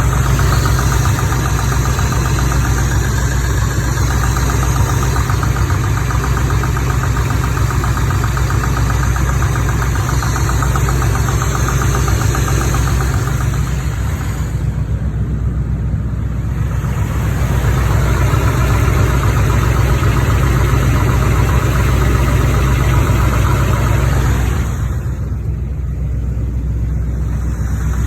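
Chevrolet 350 small-block V8 idling steadily with a quick, light tappety knock in time with the engine, which the owner places in the driver's-side valve cover and wonders whether something needs adjusting. The ticking fades briefly twice, about halfway through and near the end, while the engine hum carries on.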